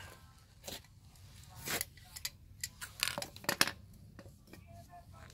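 Steel tongue-and-groove pliers clinking and scraping against a copper pipe and fitting as they are picked up and clamped on: a series of short, irregular metallic clicks.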